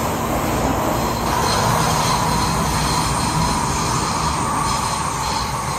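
Inside an MTR M-Train (Metro-Cammell electric multiple unit) running at speed through a tunnel: a steady rumble of wheels on rail with a high wheel squeal riding over it, a little louder about a second in.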